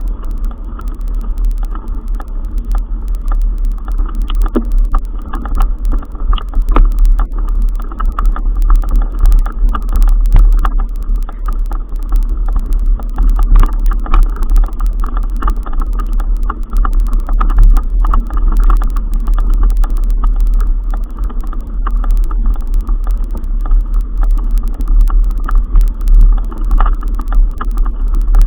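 Heavy wind rumble on the microphone of a moving rider, with many short clicks, knocks and rattles from a vehicle jolting over a rough track.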